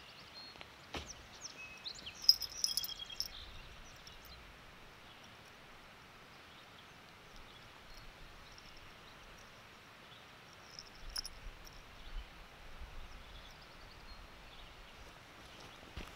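Quiet outdoor ambience with a steady faint hiss and brief high bird chirps, busiest a couple of seconds in and again around eleven seconds in. There are also soft low rubbing bumps around eleven to thirteen seconds in as a kitten brushes against the camera.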